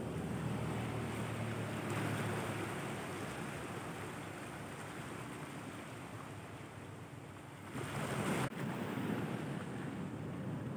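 Small sea waves washing and breaking against shoreline rocks, with wind on the microphone. The wash swells louder about eight seconds in, then drops off sharply.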